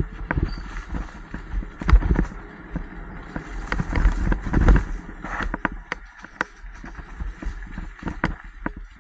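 Mountain bike ridden along a dirt singletrack: tyres rolling over dirt and dry leaves, the bike rattling and knocking irregularly over bumps, with a few heavier thumps about two seconds in and again around four to five seconds. A steady low rumble of wind on the helmet-mounted microphone runs underneath.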